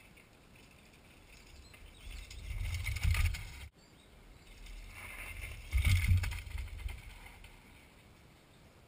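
Mountain bike riding over a dirt trail, a rush of tyre noise and rattle that swells and cuts off abruptly just under four seconds in. It swells again to a peak about six seconds in and fades away.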